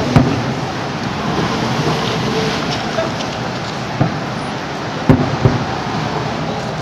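Fireworks booming, a few sharp bangs near the start, about four seconds in and twice around five seconds in, over a steady rush of outdoor background noise.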